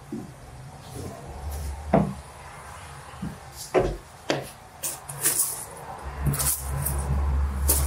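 Large wooden boards knocking and scraping against each other and the van's metal floor as they are pulled out, with a few sharp knocks. In the second half, gravel crunches underfoot as a board is carried off.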